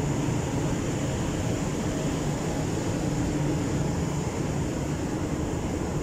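Steady mechanical hum with a low rumble and a few faint held tones, unchanging throughout.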